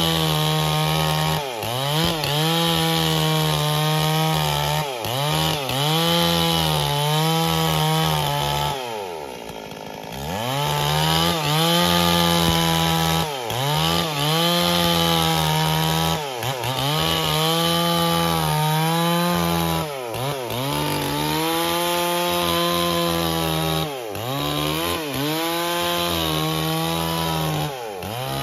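Stihl MS 440 two-stroke chainsaw running at high revs while cutting wood. Its engine speed dips and recovers every second or two as the chain bites under load. About a third of the way in it drops lower and quieter for a moment before revving back up.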